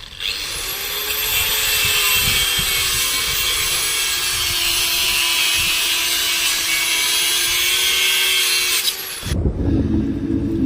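A power tool's motor running at speed and cutting, a loud steady whine whose pitch sags slightly under load, for about nine seconds before it stops abruptly. A different low humming sound follows near the end.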